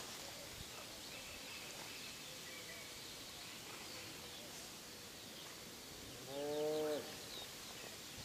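Quiet outdoor ambience: a steady hiss with faint, scattered bird chirps. About six seconds in, a short, low, humming voice-like sound lasts under a second and is the loudest thing.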